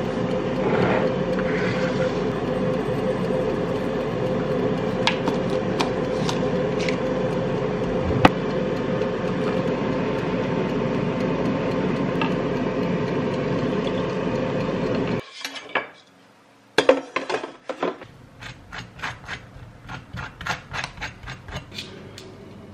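Instant coffee being mixed in a ceramic bowl: a steady scraping rub with a few light clinks, which stops abruptly about fifteen seconds in. After a short pause and a click, a laptop keyboard is typed on, soft keystrokes several a second.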